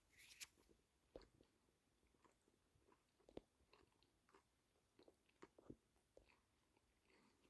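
Near silence with faint, irregular soft clicks and crunches: someone chewing a sandwich close to the microphone.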